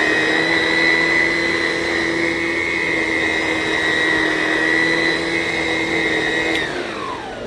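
Vacuum cleaner running steadily with a high whine. About six and a half seconds in it is switched off, and its motor winds down with falling pitch.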